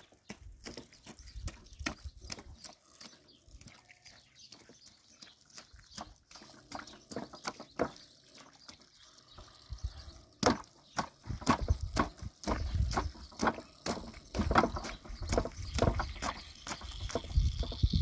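Irregular clicks, taps and rustling from hands working on a plastic tarp, with water splashing from a garden hose. The handling gets busier and louder about halfway through, with a few low thumps.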